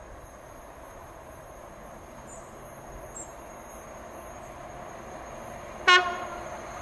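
Class 66 diesel locomotive's two-stroke V12 engine working as it hauls a loaded freight train closer, growing slowly louder, with one very short toot on its horn near the end.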